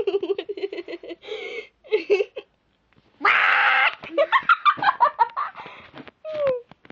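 A girl laughing hard in quick bursts, breaking into a loud, shrill shriek about three seconds in, then laughing on in short bursts.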